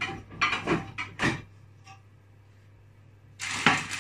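Someone moving things about in a kitchen: several short rustling and clattering handling noises in the first second and a half, then a louder, longer one near the end, over a low steady hum.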